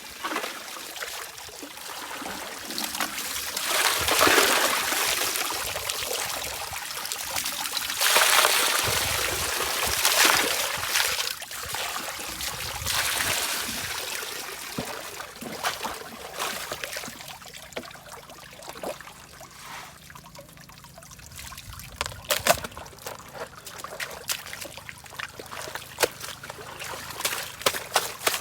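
Water sloshing and trickling, swelling and easing in several surges, with scattered sharp clicks and knocks through the second half.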